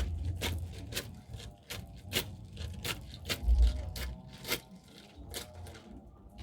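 A traditional corn sheller stripping kernels off the cob: irregular sharp clicks and rattles of kernels breaking loose, with a few low thumps.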